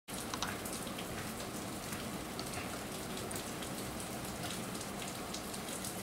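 Steady rain pattering, a continuous hiss sprinkled with many small irregular drop ticks.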